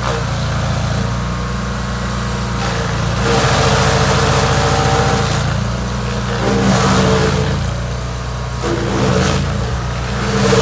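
Chainsaw engine running, revving up and easing back several times as it cuts into a log root.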